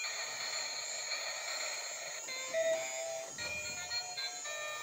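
Battery-powered light-up toy train playing an electronic melody: held beeping notes at first, then a run of shorter notes from about halfway through.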